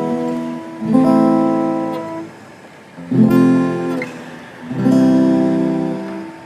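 Acoustic guitar strumming slow chords, three new strums, each left to ring and fade before the next.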